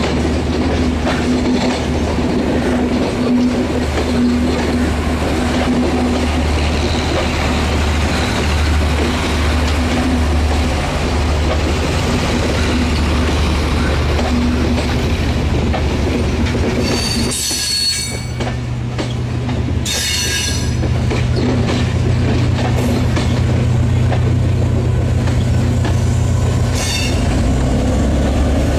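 Diesel passenger train pulling slowly out of a station: a steady low engine hum and the rolling of coach wheels. Wheels squeal twice, loudly, about two-thirds of the way through, then once more faintly near the end. The engine note steps up after the first squeal.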